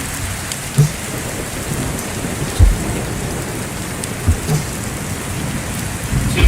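Steady, loud hiss of heavy rain, broken by a few short, deep thumps about a second or two apart.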